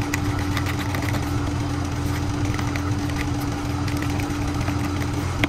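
A steady low hum, with faint scattered light clicks from a spoon stirring body wash in a plastic cup.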